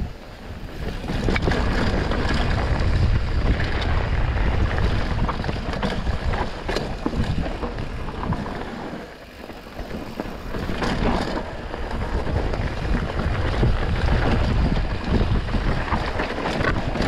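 Mountain bike riding down a dirt and rock singletrack: tyres running over the ground and the bike rattling over bumps in quick sharp clicks, with wind buffeting the handlebar-mounted camera's microphone. The noise eases briefly about nine seconds in, then picks up again.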